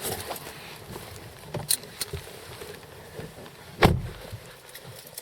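Scattered clicks and light handling knocks, with one heavier thump nearly four seconds in.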